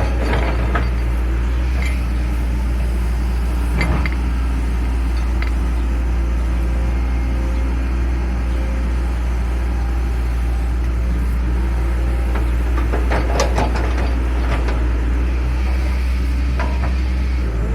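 Excavator's diesel engine running steadily, with a few short metallic clinks about four seconds in and a cluster of them around thirteen seconds.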